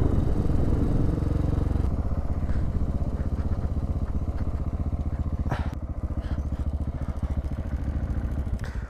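Motorcycle engine running as the bike slows down. Its louder note drops away about two seconds in, leaving a steady low pulsing, with a brief click about five and a half seconds in.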